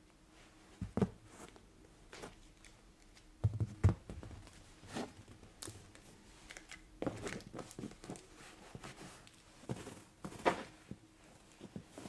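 Maine Coon cat shifting about on a fabric sofa: irregular rustles and scratchy brushing against the upholstery, with a few soft thumps, the strongest about a second in, near four seconds and past ten seconds.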